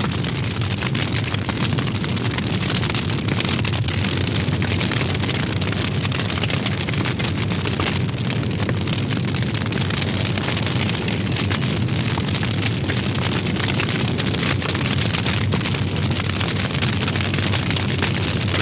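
Fire sound effect: a steady, dense roar with fine crackling, holding an even level throughout.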